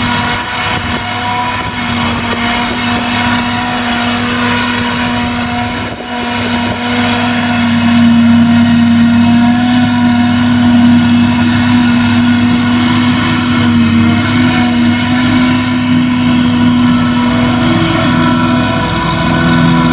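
Claas Jaguar 850 self-propelled forage harvester at work, chopping grass from the swath and blowing it into a trailer: a loud steady machine hum with several held tones. The sound dips briefly about six seconds in and runs a little louder after.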